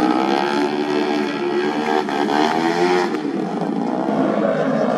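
Tuned 130 cc automatic racing scooter engines running hard, their pitch dropping and then climbing again as they rev.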